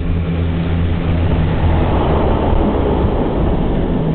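Seaplane's engines droning with the propeller tone, while the floats run on the water and a loud rush of spray swells about two seconds in, then eases as the engine tone steadies again.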